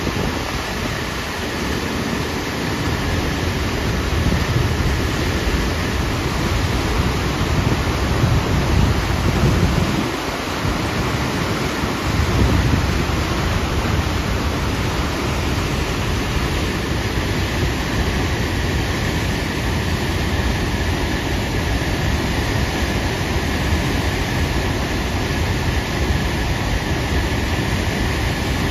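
The Upper Tahquamenon Falls, a broad curtain of tannin-brown river water plunging over a rock ledge into its pool, making a loud, steady rush of falling water.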